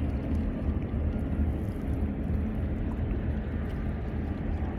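Wind buffeting the microphone over a steady rush of water, aboard a sailboat under way.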